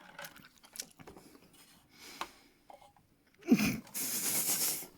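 A person chewing a toffee-filled chocolate with faint sticky clicks of the teeth, then a loud breathy rush of noise about three and a half seconds in that lasts a second and a half.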